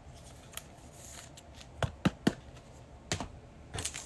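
Trading cards being handled on a table: a few sharp clicks and taps as cards are flipped and set down. Near the end a foil card-pack wrapper starts to crinkle.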